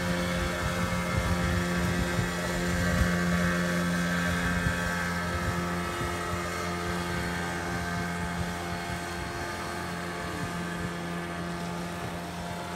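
Small fishing boat's engine running steadily with an even hum. The hum is loudest about three seconds in, then slowly fades as the boat pulls away across the harbour channel.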